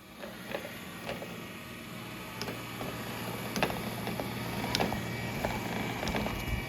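Robot vacuum running: a steady motor hum that builds up about two seconds in, with scattered sharp clicks and ticks over it.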